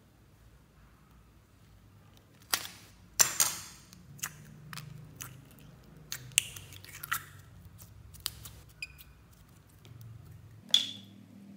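Small plastic slime pots being handled and their lids opened: a series of sharp plastic clicks and snaps, loudest about three seconds in and again near the end, some followed by a brief crackle.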